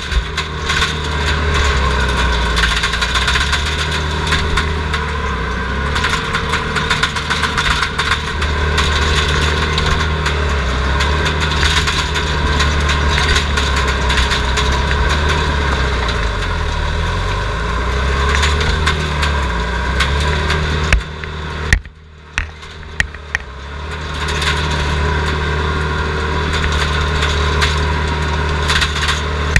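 Heavy machine's diesel engine running steadily, heard from inside its screened cab, its pitch sagging and recovering partway through as it takes load. A little over 20 seconds in the sound drops away for about two seconds with a few knocks, then the engine comes back up.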